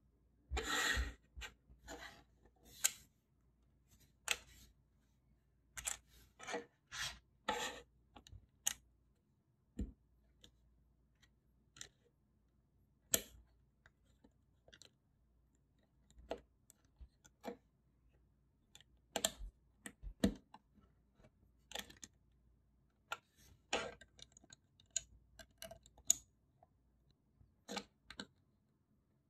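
Plastic Lego bricks being handled and pressed together on a wooden tabletop: scattered short clicks and rattles, with a longer rattle about a second in.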